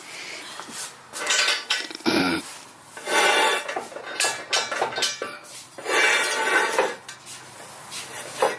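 Repeated metallic clanking and scraping from jacking the Jeep's rear axle higher, in several bursts about a second apart with some faint squeaks.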